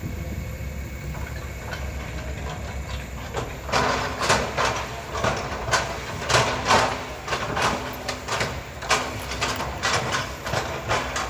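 Hydraulic excavator's diesel engine running steadily, with a series of sharp metallic clanks and squeaks starting about three and a half seconds in as the machine works, and a short steady whine that comes and goes several times.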